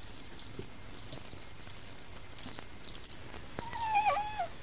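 A cat meows once near the end, a single call of about a second that dips in pitch at its close. Before it, faint drips and small clicks of water.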